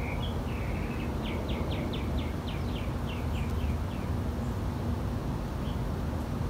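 A small bird calling: a brief twitter, then a quick run of about ten short falling notes. Under it runs a steady low background rumble.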